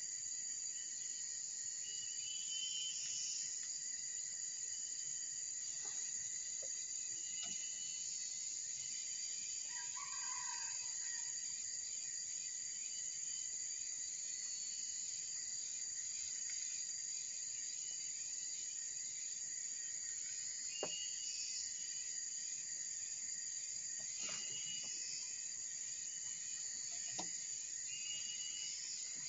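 Jungle ambience: a steady high insect drone, with short bird chirps repeating every few seconds and a lower call about ten seconds in. A few faint knocks are heard now and then.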